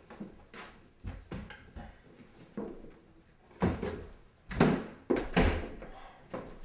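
A door being opened and footsteps on a wooden floor: a run of separate knocks and thuds, heaviest around the middle.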